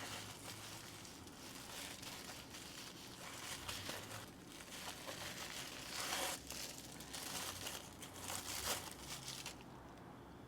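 Paper or plastic wrapping crinkling and rustling as items are unwrapped by hand, with a few louder crinkles; it stops shortly before the end.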